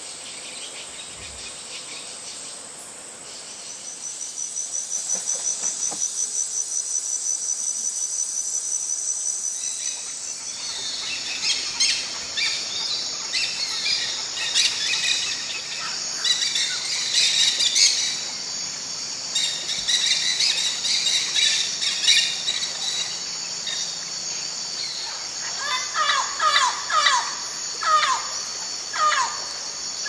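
Rainforest chorus: insects trilling steadily, with a fast pulsing insect buzz for several seconds. About a third of the way in, many birds start chattering. Near the end, dusky-headed parakeets give repeated sharp calls that fall in pitch.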